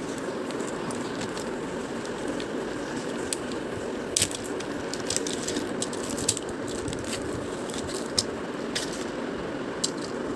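Tambola number coins being unpacked and snapped apart by hand: scattered sharp clicks and crackles, starting about three seconds in.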